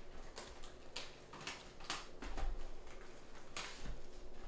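Trading cards being handled and flipped through, their edges sliding and snapping against each other in a series of irregular short clicks and swishes.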